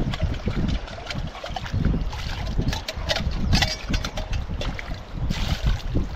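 Wind buffeting the microphone over running water, with scattered light clinks and knocks from dishes being washed.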